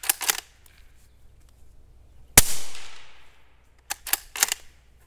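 One suppressed shot of subsonic 300 Blackout from a 16-inch Ruger American Ranch bolt-action rifle with a YHM R9 suppressor: a single sharp report with a short fading tail, about two and a half seconds in, which the shooter calls 100% hearing safe. Before and after it come quick metallic clicks and clacks of the bolt being worked.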